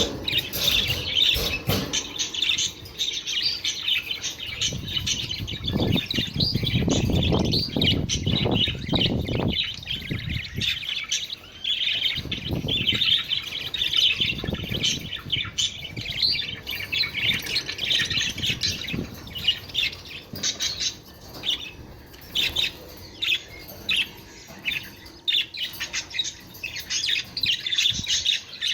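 A group of budgerigars chirping and chattering continuously in fast, high twittering. A low rumbling noise rises under the chirping about a quarter of the way in and again briefly near the middle.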